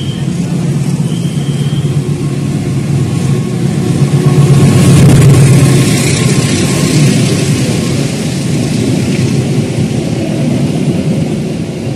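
Diesel locomotive hauling a passenger train passes close by. The engine's steady low drone grows to its loudest about five seconds in as the locomotive goes past, then gives way to the rumble and rattle of wheels on rail as the coaches run by. Two short high tones sound in the first two seconds.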